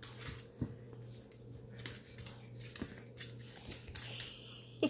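Small dog playing with a plush toy on a laminate floor: scattered light scratches, rustles and clicks of claws and toy, over a faint steady hum.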